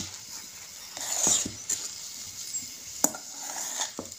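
Steel spoon stirring and scraping cooked semolina shira in a steel pan, with a longer scrape about a second in and a couple of sharp clinks of spoon on metal later on.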